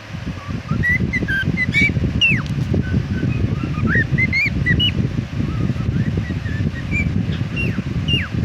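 Cockatiel chirping and whistling in many short notes, some gliding up or down in pitch, over a loud steady low rumble.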